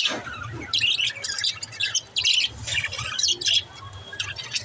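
Budgerigars chirping and chattering: a rapid, irregular stream of short, high calls, several overlapping at once.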